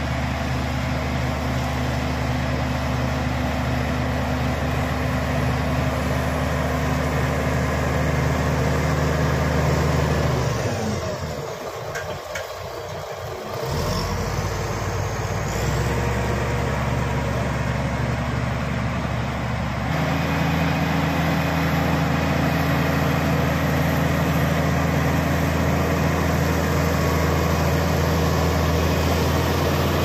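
Shantui SD16 crawler bulldozer's diesel engine running steadily as the dozer works a soil stockpile. About eleven seconds in the sound drops and changes for a few seconds, and near twenty seconds in it settles at a new steady pitch.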